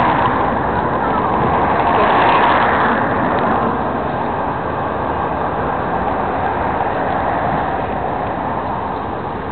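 Road traffic noise, swelling as a vehicle passes about two seconds in and then easing off.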